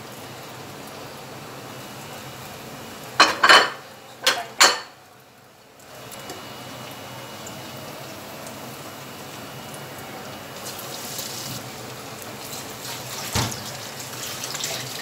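A few sharp clatters of cutlery against a dish about three to four and a half seconds in. Then bread rolls deep-frying in hot oil in a wok, with a steady sizzle.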